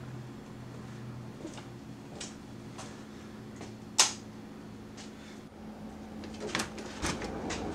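A steady low hum with scattered light clicks and taps. One sharp click comes about four seconds in, and several more clicks come near the end.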